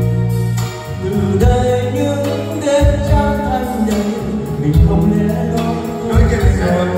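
A man singing karaoke into a handheld microphone over a backing track with bass and a steady beat, played loud through a hall's PA speakers.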